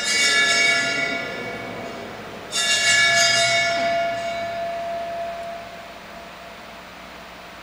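Altar bell rung at the elevation of the chalice during the consecration, struck twice, at the start and about two and a half seconds in, each ring fading away over a few seconds.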